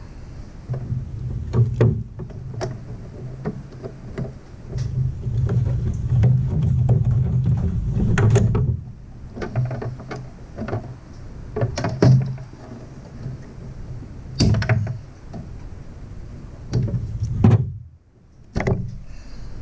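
Hands and a screwdriver working wires into the terminals of a metal electrical box: scattered clicks, taps and knocks, over a low hum that comes and goes.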